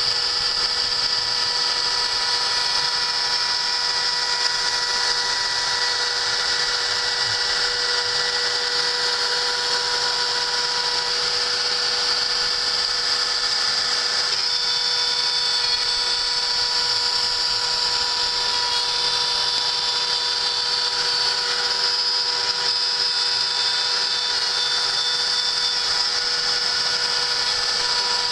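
Homemade CNC machine running steadily: a power-tool motor whine with held tones and a high hiss. About halfway a higher tone joins in and shifts pitch in small steps.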